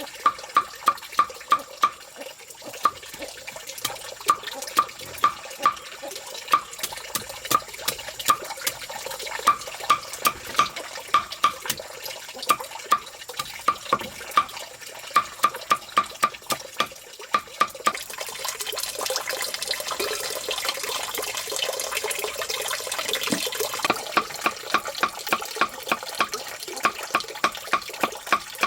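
Water running and splashing, with a steady run of sharp, pitched ticks about three a second; the water noise grows fuller in the second half.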